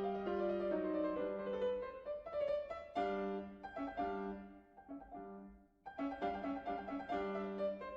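Background piano music from a classical sonata movement: a quick run of notes, with a brief near-pause about two-thirds through.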